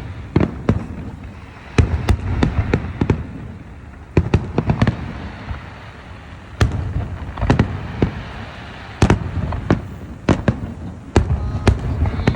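Fireworks display: aerial shells bursting in quick volleys of sharp bangs, a cluster every second or two, with a low rumble carrying on between the volleys.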